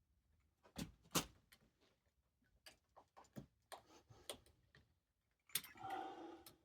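Faint scattered clicks and taps of a blade working on a hard plastic helmet part, with two sharper knocks about a second in and a brief rasping scrape near the end.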